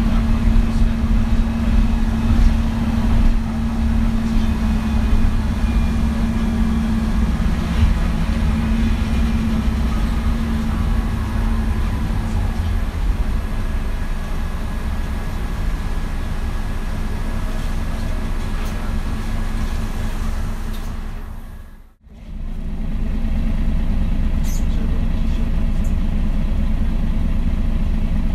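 MAN NG 313 articulated city bus's diesel engine and Voith automatic transmission running, heard from inside the passenger cabin as a steady low drone, with a faint rising whine about a third of the way in. The sound fades out sharply about three-quarters through and comes straight back.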